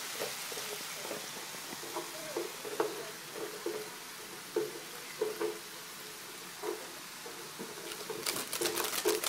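Pork, bean sprouts and yakisoba noodles sizzling in an electric skillet, with wooden chopsticks tapping and scraping against the pan as the blocks of noodles are broken up. A quick flurry of clicks comes near the end.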